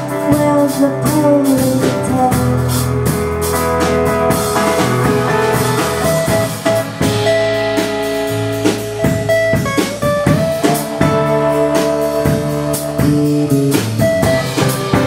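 Instrumental stretch of a song: guitar over a drum kit, with steady drum strokes.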